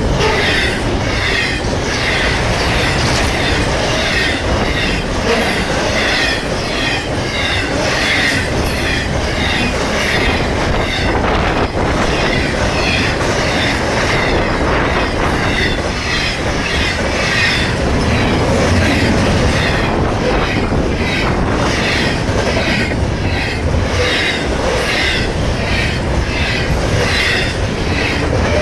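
A long freight train of intermodal cars rolling past at speed, its wheels clicking over the rail joints in a steady rhythm with some metallic wheel squeal.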